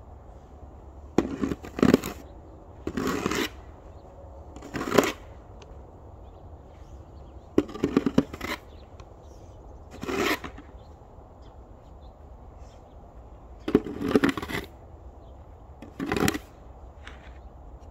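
Slow footsteps crunching through deep snow: seven separate crunches, irregularly spaced a second or two apart.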